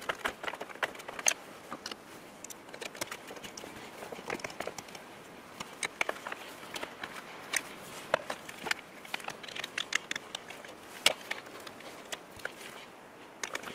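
Scattered, irregular clicks and taps from a nut driver and small parts being handled at a pickup's steering column and gear-selector housing, metal and plastic knocking together. A few sharper knocks stand out, one near the start, one past the middle and one near the end.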